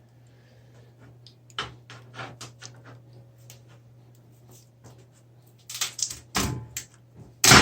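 Clicks and knocks of a PC case and its parts being handled, with a louder clatter in the last couple of seconds, over a faint steady low hum.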